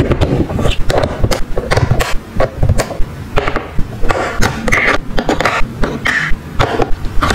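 Small plastic toy kitchen pieces being handled: a rapid, irregular run of clicks, taps and light scrapes as plastic pans and a pot lid are set down on a plastic toy stove.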